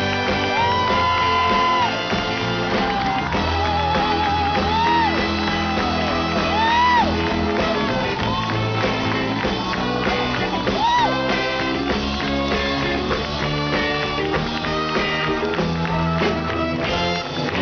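Live band playing, with drums, electric bass and organ under a male singer who shouts and holds high, sliding notes, some with a wavering vibrato.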